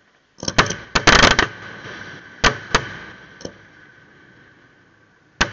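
Fireworks going off: a few sharp bangs about half a second in, a dense burst of bangs and crackles about a second in, two more reports about two and a half seconds in, and one more sharp bang near the end, each trailing off in an echo.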